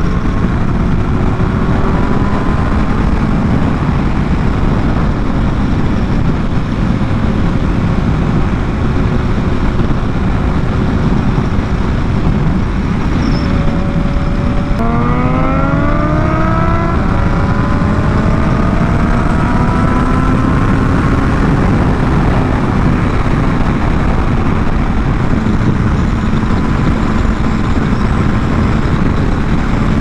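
BMW S1000RR's inline-four engine running at road speed over heavy wind rush. About halfway through the engine note climbs sharply as the bike accelerates, then rises again a few seconds later.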